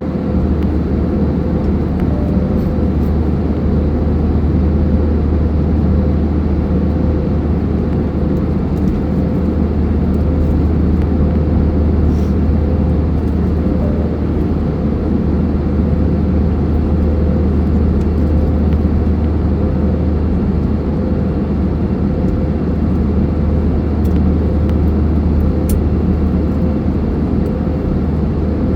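Airliner cabin noise in flight: a steady low rumble of engines and rushing air, with a faint steady hum above it.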